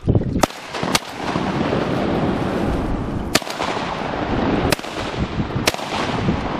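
A volley of shotgun shots at wood ducks: two quick shots about half a second apart near the start, then three more spread over the next few seconds.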